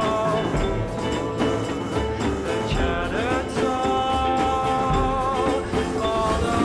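Background music with long held melody notes that waver and glide in pitch over a full backing.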